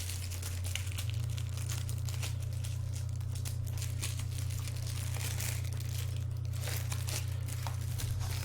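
Packaging crinkling and rustling in irregular bursts as a stack of thin comic books is handled and sorted, over a steady low electrical hum.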